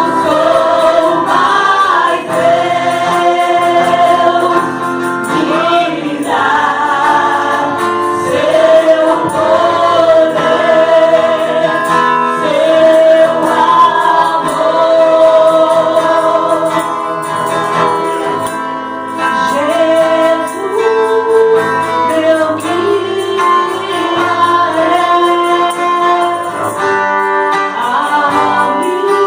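Choir singing a gospel worship song, with long held notes.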